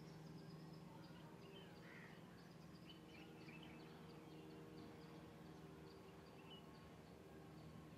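Near silence: a faint steady low hum, with a few faint bird chirps scattered through it.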